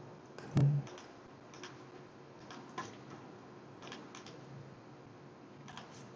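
Scattered clicks of a computer mouse and keyboard being worked, with one louder knock about half a second in.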